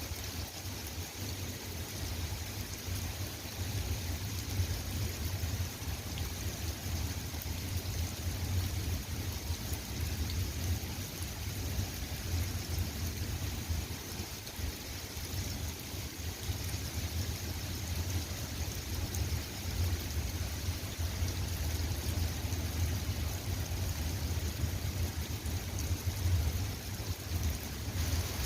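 Steady rain falling, an even unbroken hiss, with a constant low rumble underneath.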